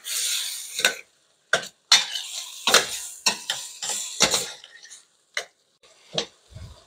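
A spoon stirring chopped tomatoes in a frying pan, scraping along the pan with a brief hiss at the start, then knocking against it in a string of irregular clicks.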